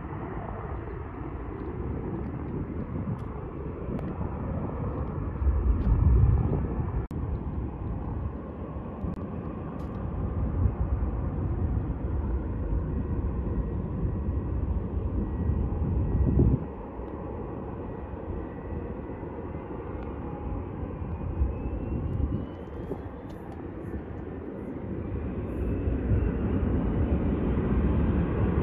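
Distant jet airliners at the airport across the water: a steady low rumble, with two louder low surges about six seconds in and around sixteen seconds, and a faint rising whine in the second half.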